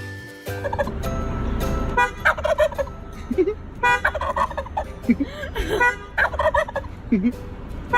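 A bird giving four rapid, rattling calls about every two seconds, over a steady low rumble.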